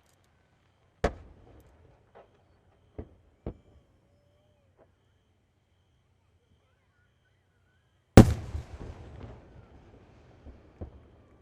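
Fireworks shells bursting in sharp bangs: one about a second in, two smaller ones a couple of seconds later, and the loudest about eight seconds in, followed by a rumbling tail and scattered crackles.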